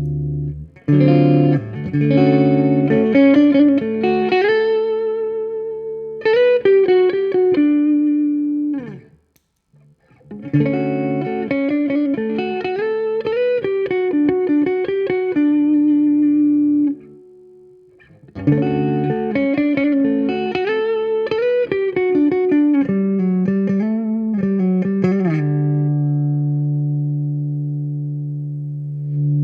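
Electric guitar played through a compressor pedal: phrases of picked single notes, some held long and some bent in pitch, with two short pauses about 9 and 17 seconds in.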